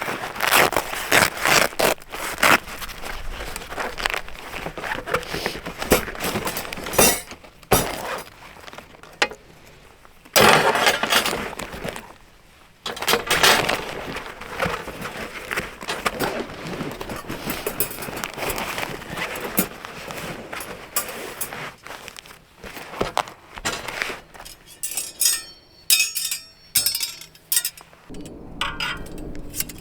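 Irregular clinks, clatters and scrapes of hard objects being handled, with short pauses between bursts.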